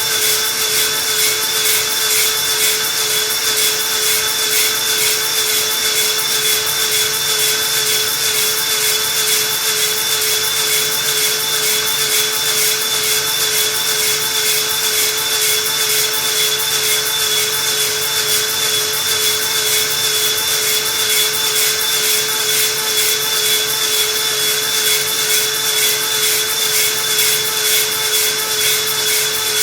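Electric drill spinning a cylinder hone inside the cast-iron bore of a GM 6.0 L LQ9 block: a steady motor whine with a slight regular wobble over the scraping of the abrasive against the cylinder wall.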